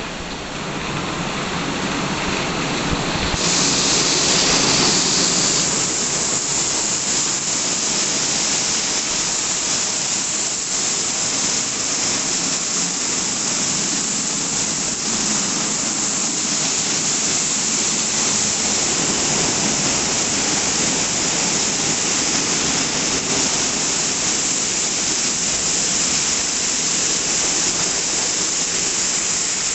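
WashTec SoftCare 2 Pro rollover car wash in its brush-wash-with-polish stage: rotating brushes and water spray making a steady, loud hiss. A sharper hiss comes in about three seconds in and holds.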